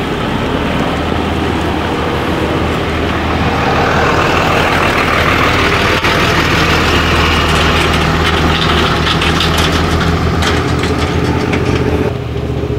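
An engine idling steadily with a low hum, and a rushing noise that swells over the middle few seconds and fades near the end.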